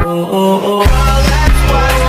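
Music. The bass and drums drop out for under a second, then come back in.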